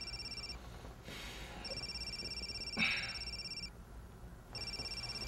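Telephone ringing with an electronic trilling ring, in bursts of about two seconds with about a second's pause between them.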